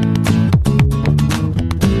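Background music: strummed guitar with a steady rhythm.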